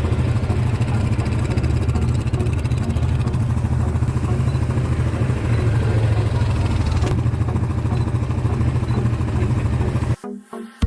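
ATV engine running steadily while riding, strong and low; the sound cuts off abruptly shortly before the end.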